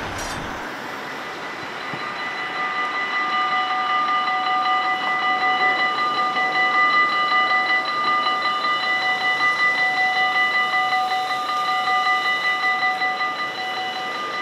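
Dutch level-crossing warning bell ringing continuously and rapidly, growing louder about two seconds in, as the crossing closes: it signals an approaching train while the red lights flash and the half barriers lower.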